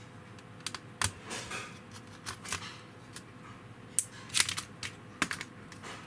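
Irregular light clicks and taps from hands and a tool working on a disassembled Dell N5110 laptop palm rest, its metal frame and plastic touchpad parts, with a quick cluster of sharper clicks about four seconds in.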